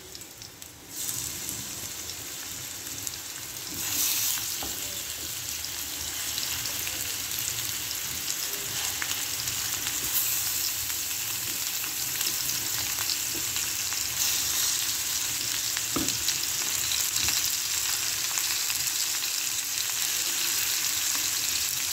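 Marinated chicken pieces sizzling as they shallow-fry in a little oil in a frying pan, with fine spitting crackles. The sizzle swells about a second in and again at about four seconds, and there is a single knock about two-thirds of the way through.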